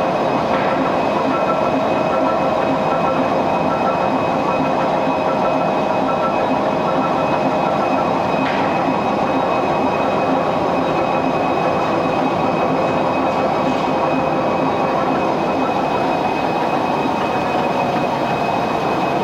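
Kataoka film slitter-rewinder running at about 200 m/min: a loud, steady mechanical noise of rollers and film winding, with steady whining tones running through it. A faint repeating high tone stops about eight seconds in.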